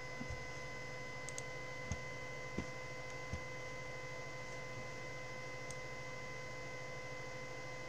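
Steady electrical hum with a few faint clicks and soft knocks, mostly in the first three and a half seconds.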